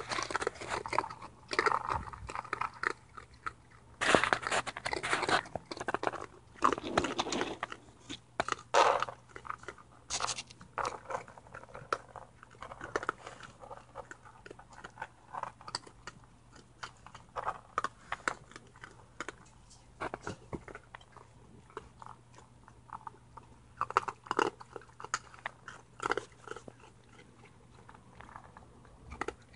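Raccoons, a mother and her young, crunching and chewing dry kibble right at the microphone: irregular crisp crunches, thickest in the first ten seconds, then sparser, with a short flurry again about twenty-five seconds in.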